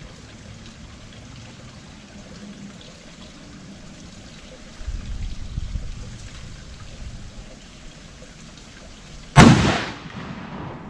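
A single rifle shot about nine seconds in: one sharp, loud report that rings away over about a second. A low rumble is heard for a couple of seconds before it.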